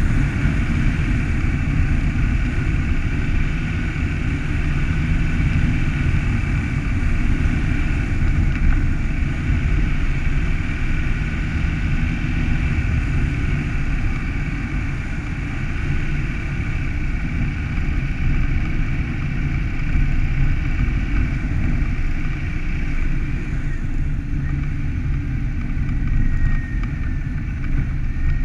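A car driving steadily along a snow-packed road, its engine and tyre noise running evenly throughout.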